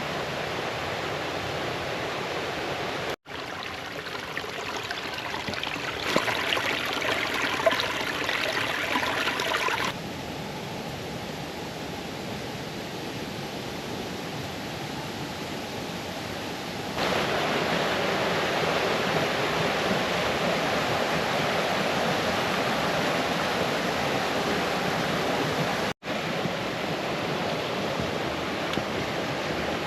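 A brook rushing and splashing as it cascades over stones, a steady rushing sound. Its loudness jumps abruptly a few times, with two very short dropouts, one about three seconds in and one near the end.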